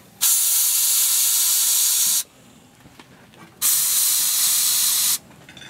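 Air hissing out of a Toyota pickup's tyre through a hose-mounted tyre gauge and deflator at the valve, in two loud bursts of about two seconds each that start and stop abruptly: the tyre is being let down to a lower pressure for driving on dirt and sand.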